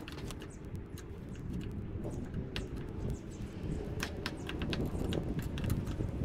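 Hand blade shaving bark and wood off a walking-stick blank clamped in a bench, heard as scattered short scrapes and clicks, over a low steady rumble.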